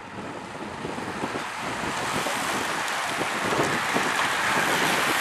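A bunch of road-racing bicycles riding past close by, a hiss of tyres and whir of wheels that swells over the first couple of seconds as the riders arrive, then holds.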